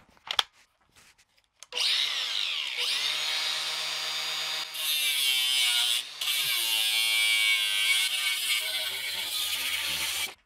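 A handheld power tool cutting a piece clamped in the bench vise. It starts about two seconds in and runs with a steady whine whose pitch sags and wavers as it bites. It stops briefly about six seconds in, runs again, and cuts off sharply near the end.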